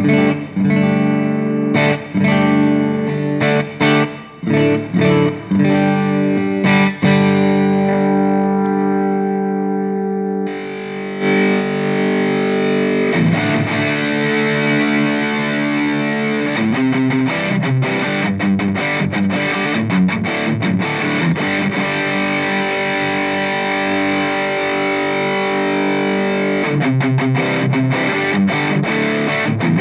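Electric guitar played through an Orange Crush 35 LDX solid-state combo amp: chords and picked notes in a cleaner tone, switching about ten seconds in to a brighter, distorted tone that carries on.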